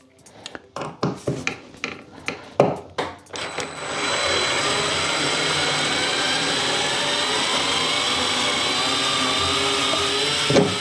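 Fanttik S1 APEX electric screwdriver driving a skateboard truck bolt out of the deck. A few clicks and knocks of handling come first; about three seconds in, the small motor starts and runs steadily with a high whine for about seven seconds, then stops.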